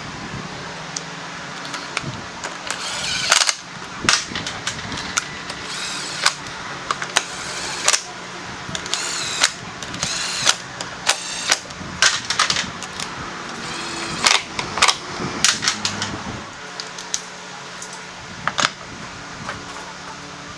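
Irregular sharp metal clanks and knocks from tools working on a scooter wheel and tyre, with a few brief high squeaks, over a steady workshop hum.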